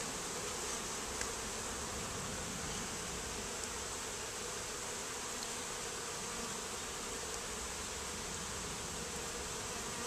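Honeybees buzzing steadily around an opened hive box, the colony disturbed by a frame of comb being lifted out.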